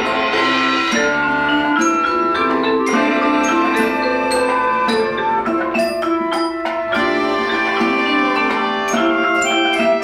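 Chamber ensemble of clarinets, flute, accordions, marimba and percussion playing a folk-song arrangement, with held wind and accordion notes over quick struck marimba notes.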